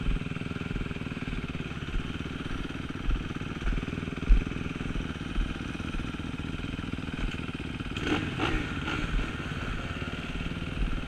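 2017 Kawasaki KX250F single-cylinder four-stroke engine running at a low, steady idle-level pace, with occasional low thumps. About eight seconds in, an engine revs briefly.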